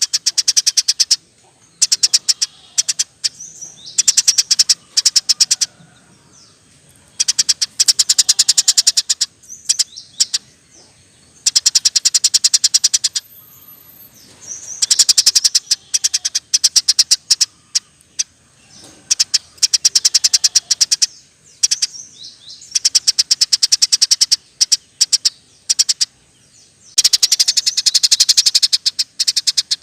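Eurasian tree sparrow (burung gereja) giving rolling chatter: bouts of rapid, high-pitched chirps, each lasting one to three seconds, repeated with short pauses.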